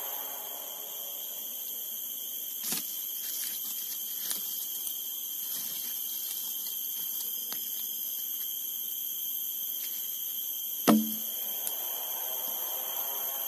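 Steady high-pitched drone of forest insects, several tones held at once. A few light knocks, and about eleven seconds in one loud wooden knock with a dull thud as a block of wood is set against the felled log.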